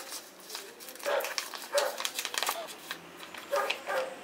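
Thin plastic packaging crinkling and rustling in the hands as a microfiber lens-cleaning cloth is unwrapped and pulled out. A few short, louder yelps come through in between.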